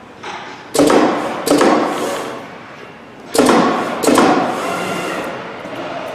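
CNC fabric cutting machine at work: sharp thuds, each trailing off in a hiss over most of a second. They come as two pairs about two seconds apart, with a fifth near the end.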